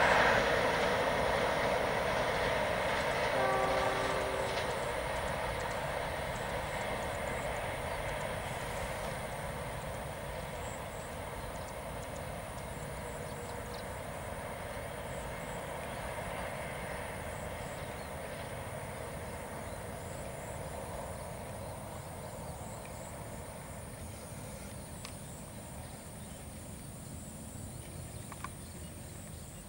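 Passenger train's coaches rolling away on the rails, the wheel and rail noise fading steadily as the train recedes. A short steady tone sounds briefly about four seconds in.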